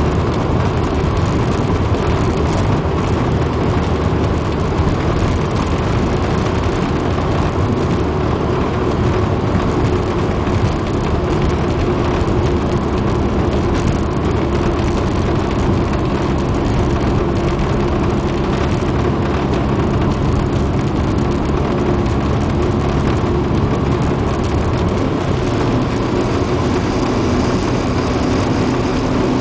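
Turbocharged Ford Escort ZX2's 2.0-litre four-cylinder engine pulling hard under sustained acceleration at highway speed, with wind and tyre noise. Its note climbs slowly and steadily. It is running low boost through a T3 Super 60 turbo with a cracked exhaust housing.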